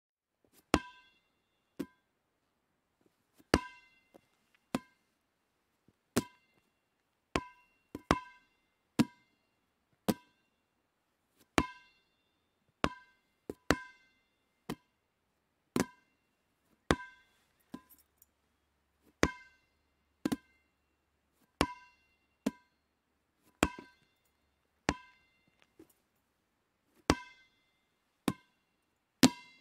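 Rubber dodgeball bouncing again and again, about one sharp hit a second at uneven spacing. Each bounce has a short ringing ping, and some hits are louder than others.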